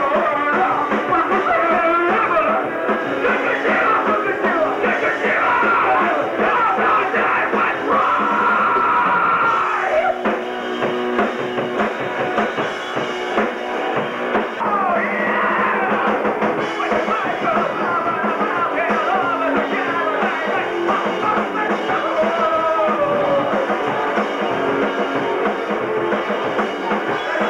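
A live rock band playing loud: electric guitar over a drum kit, easing off briefly about ten seconds in.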